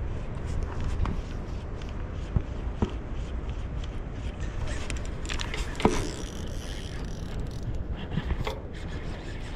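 Steady low wind rumble on the microphone, with scattered clicks and scrapes from a baitcasting reel and fishing line being handled; the sharpest click comes about six seconds in.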